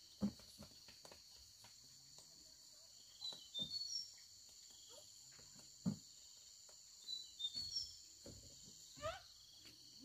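Steady high chirring of crickets in a rural insect chorus, with short bird chirps over it. There are a few sharp thumps, the loudest just after the start and about six seconds in, and a short rising call a little after nine seconds.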